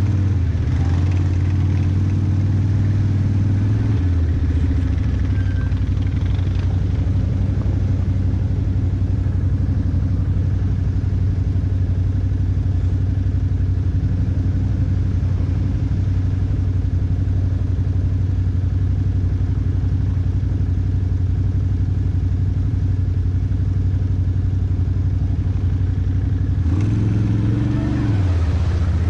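ATV engine running steadily, with a change in engine pitch about four seconds in and again near the end.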